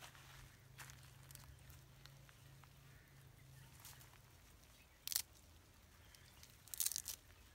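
Quiet handling rustles of cloth and dry straw, with two brief louder rustles about five seconds in and again near the end.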